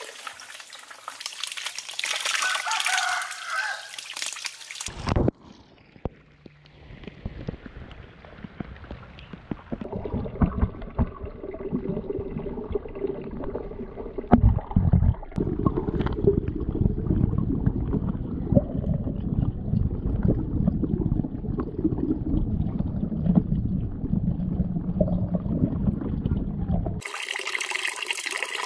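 Water trickling and splashing into a small fish pond. About five seconds in the sound turns muffled, the pond's water movement heard from a microphone under the surface, and the open-air trickle returns near the end.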